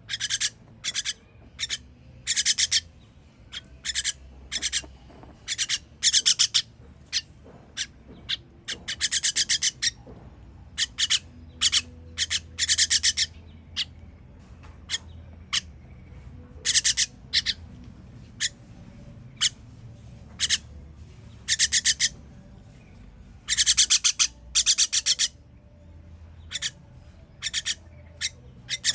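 Baby bird's raspy, high-pitched begging calls, repeated in bursts every second or so, some short and some about a second long: the calls of a nestling begging to be fed.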